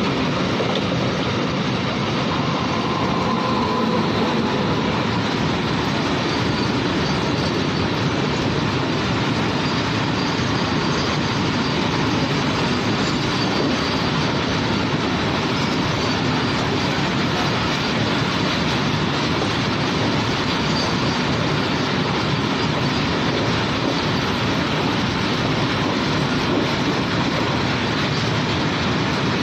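Railway train running on the tracks: a continuous, steady wheel-on-rail noise that holds level without building or fading.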